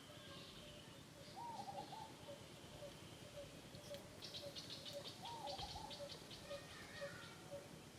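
Birds calling faintly: a soft low note repeated about twice a second, two short wavering calls, and a quick run of high chirps about halfway through.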